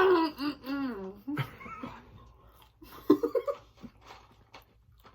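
A person's voice making wordless, drawn-out high sounds in the first second, then a few short vocal sounds, growing quieter toward the end.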